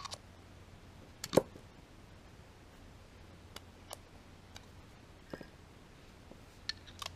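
Light metallic clicks and taps as small steel parts of an LS hydraulic lifter (plunger, spring, lifter body) are handled and fitted together, with one louder click a little over a second in and a few soft ones after, over a faint low hum.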